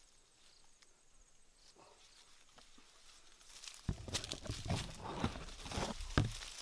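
Leaves and twigs rustling and crackling as leafy branches are grabbed and pulled at close range. It starts about four seconds in and runs as a dense crackle with a few sharper snaps.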